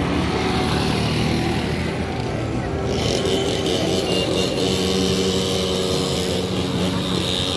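Steady hum of a small motor vehicle running among a busy crowd's noise, with a brighter, higher layer of sound coming in about three seconds in.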